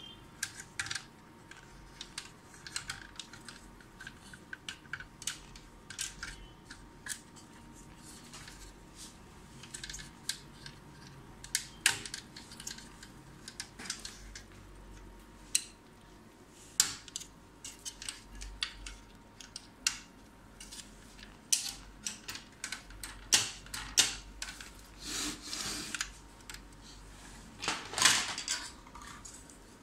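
Plastic top cover and casing of an HP LaserJet P1102 laser printer being handled, with scattered clicks, taps and knocks of plastic parts. A few louder knocks come near the end as the printer body is turned over.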